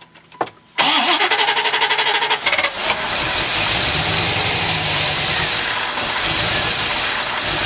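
A 1989 Chevrolet Corvette's V8 is cranked by the starter for about two seconds, catches, and settles into a steady idle. The engine has a bad fuel injector.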